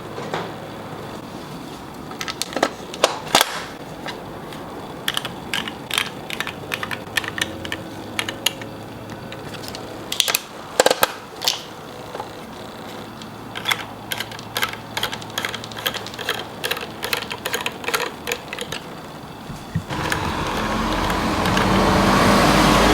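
Irregular sharp clicks, taps and clinks of hand tools and bicycle parts being handled during a mountain bike build. Near the end a steady rushing noise comes in and grows louder.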